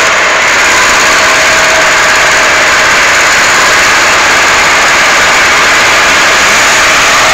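LKT forestry skidder's diesel engine running loud and steady as the machine crawls forward through deep mud.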